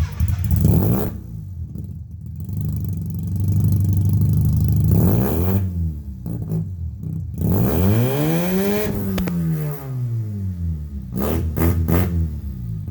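Rotary engine of a 1959 Austin-Healey Sprite running through a newly fitted Flowmaster Hush Power muffler, revved up and back down several times, with the biggest rise and fall about nine seconds in.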